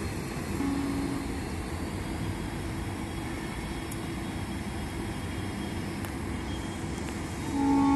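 Diesel-electric locomotives, an EMD JT26CW-2B and a GE C30-7 working in multiple, rumbling steadily as they move slowly, with a short low tone about a second in. Near the end the locomotive horn sounds loudly, a chord of several tones held steady.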